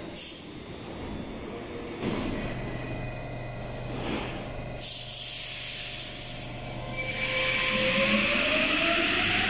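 Paris Métro MP14 rubber-tyred train at the platform: a few short hisses of air, then from about seven seconds in a steadily rising electric motor whine as the train starts to pull away.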